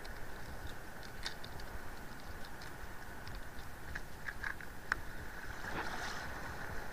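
Steady wind and water noise around a small boat on the sea, with scattered light clicks and ticks.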